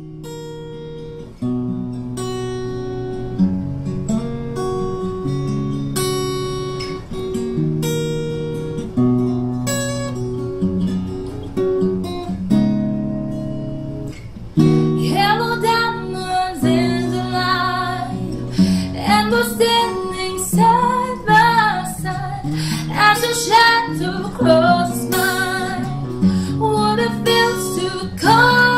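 Steel-string acoustic guitar picking a slow chord pattern alone. A woman's solo singing voice comes in about halfway through and carries the melody over the guitar.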